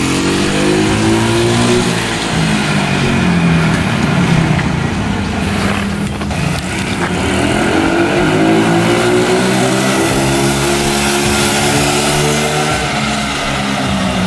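Small four-wheeler (ATV) engine revving as it is ridden, its pitch climbing and falling twice as the rider opens and eases off the throttle.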